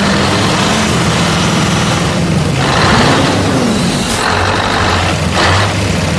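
Heavy truck engine running with a steady low drone, broken by a long hiss like an air-brake release about halfway through and a shorter hiss near the end.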